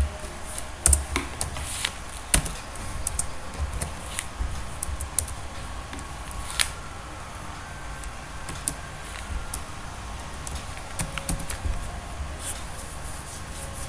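Computer keyboard typing: irregular key clicks as a misspelt word is deleted and retyped.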